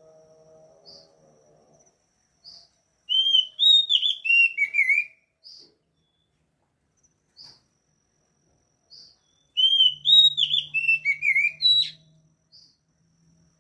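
Oriental magpie-robin (kacer) singing: two loud phrases of clear whistled notes that slide down in pitch, mixed with sharp high chips, about three seconds in and again about ten seconds in, with faint short calls between them.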